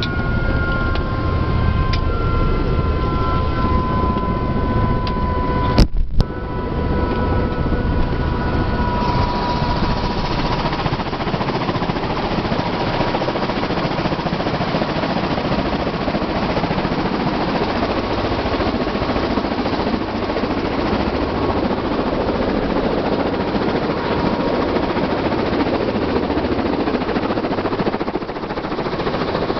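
Helicopter running on the pad: a steady, loud rush of turbine engine and rotor noise, with a faint whine that sinks slowly in pitch during the first few seconds. A single sharp knock comes about six seconds in.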